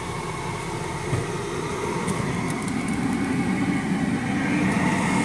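Steady rush of a BMW X5's air-conditioning blower running on max cold inside the cabin, over the engine idling, growing gradually louder near the end.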